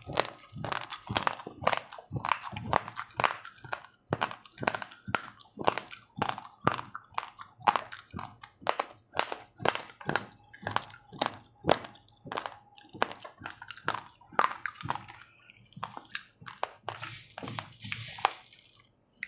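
Raw, uncooked rice grains being chewed, a close run of sharp crunches about two to three a second. Near the end, a hand rustles through the dry grains in the bowl.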